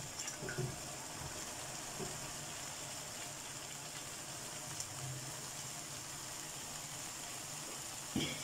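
Tomato-onion masala sizzling steadily in a wok as cauliflower florets are tipped in, with a few faint knocks and a short louder knock near the end.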